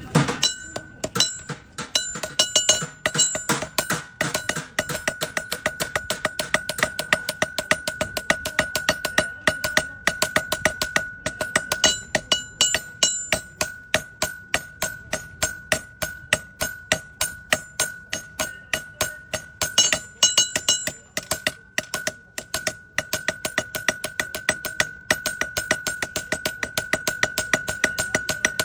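Hammer blows on metal at an anvil, struck quickly and rhythmically at several blows a second, with the anvil ringing steadily between strikes.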